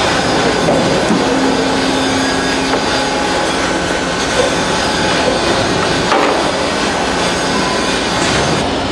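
Metal-chip compression machine running, making a steady loud mechanical noise with a few light knocks.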